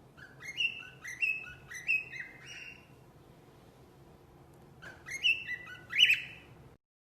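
Pet bird chirping: a run of short, rising chirps, about two a second, then a pause and a second, louder run of chirps that cuts off abruptly near the end.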